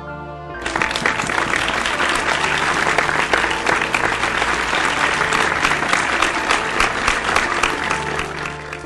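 Audience applauding over calm instrumental music; the clapping starts suddenly just over half a second in and dies away near the end.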